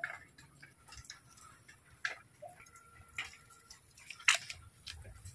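A series of sharp clicks and light knocks, roughly one a second, the loudest about four seconds in.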